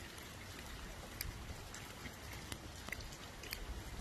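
Rain falling on wet pavement and standing water: a steady soft hiss, with a few sharp ticks of single drops landing close by.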